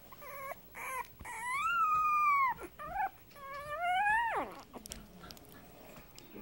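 A 24-day-old Boston Terrier puppy howling: two short high yips, then a long arched howl about a second in, a brief yip, and a second howl that climbs in pitch and falls away sharply just after four seconds.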